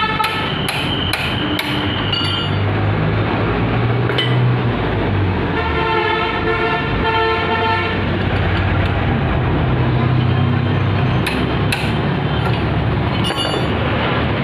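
Hero HF Deluxe motorcycle on the move: a steady rumble of engine and rushing air, with a vehicle horn held for about two seconds midway and a few regular ticks at the start.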